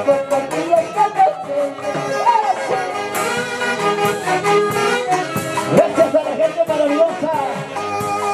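Live Andean huayno music from a band, played loud with a steady, even beat.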